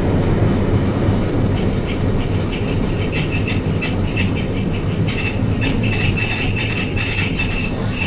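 Electric tram's steel wheels squealing against the rails in a curve: one steady high-pitched whistle held throughout, over the low rumble of the running tram, with irregular clicks and rattles from the wheels on the track.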